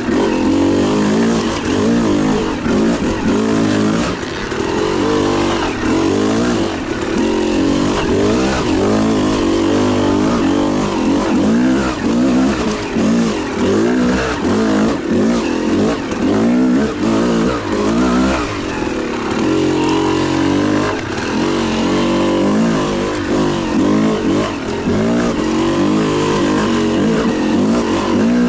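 Two-stroke dirt bike engine being ridden hard, its pitch rising and falling over and over as the throttle is worked and gears change.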